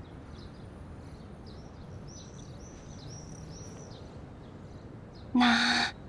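Quiet outdoor background with a small bird chirping four times in quick succession about two seconds in. Near the end comes a brief loud vocal sound from a person.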